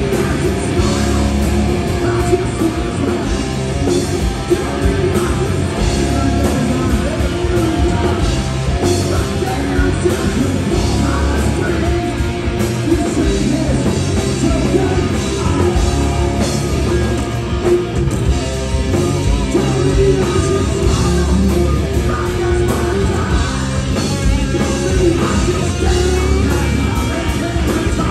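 Rock band playing live: a vocalist singing into a microphone over electric guitars and a drum kit.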